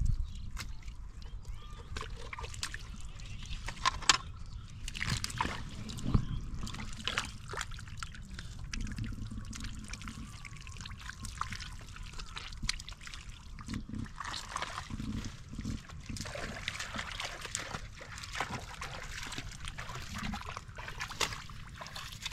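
Bare hands squelching and splashing through shallow mud and water, feeling for fish: a steady run of small wet splats, slops and trickles.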